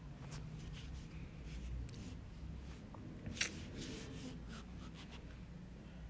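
Faint scratching and rubbing with scattered light clicks, and one sharper click a little past halfway.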